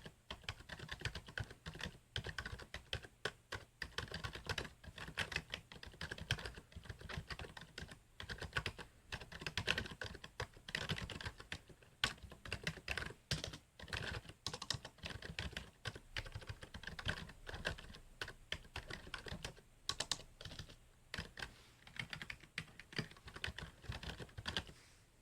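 Typing on a Logicool K120 wired membrane keyboard: a steady run of quick, irregular key clicks that stops shortly before the end.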